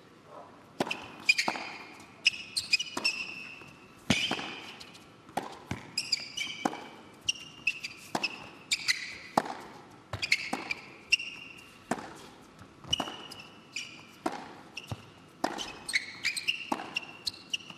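Tennis rally on an indoor hard court: repeated sharp racket strikes and ball bounces, with shoes squeaking on the court surface between shots.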